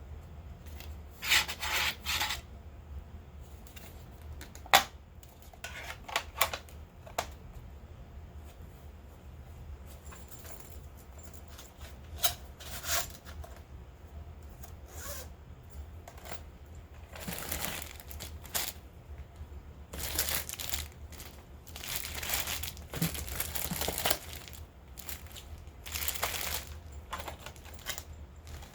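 Packaging being handled during an unboxing: short bursts of crinkling and tearing, with sharp clicks and taps between them, over a low steady hum.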